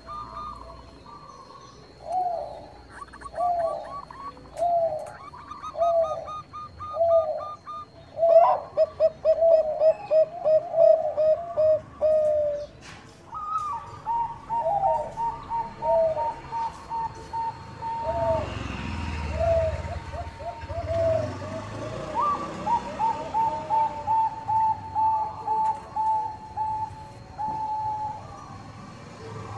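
Zebra doves (Thai-bred 'Bangkok' perkutut) cooing: series of short coo notes, some spaced about a second apart and others in fast rolling runs, with a higher, more even string of notes joining about halfway through.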